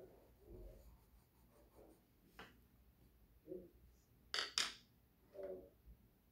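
Coloured pencil scratching and rubbing on paper while colouring, soft and intermittent, with two short sharp strokes close together about four and a half seconds in.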